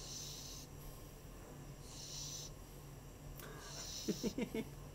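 A pug snoring and wheezing as he breathes while resting, with a hissy breath about every two seconds, typical of the breed's short, flat muzzle. Near the end comes a quick run of short, louder sounds.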